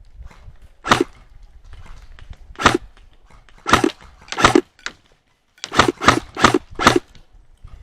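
Airsoft electric gun (AEG) firing single shots, each a short sharp crack: about eight shots, spaced unevenly, with a quicker run of four near the end.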